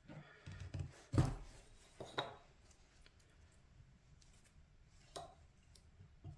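A chisel knocking and scraping against a wooden workbench: a few light knocks, a sharp one about a second in and another a second later, then two lighter knocks near the end.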